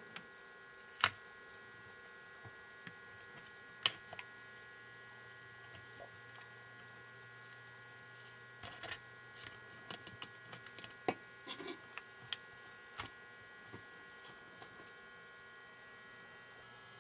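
A small craft knife blade prying a plastic screen-bezel cover off a laptop, making scattered sharp clicks and ticks as the blade catches and the plastic snaps. There is a louder click about four seconds in and a cluster of clicks between about eight and thirteen seconds, over a faint steady hum.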